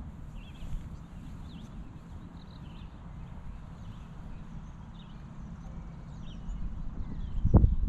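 Wind buffeting the microphone in a low rumble that swells into strong gusts near the end, with small birds chirping now and then in the background.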